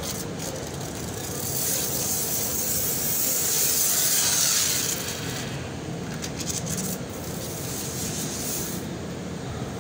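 Water spraying from a hose onto a foam-covered motorcycle: a steady hissing spray that grows louder about one and a half seconds in, then eases back about five seconds in.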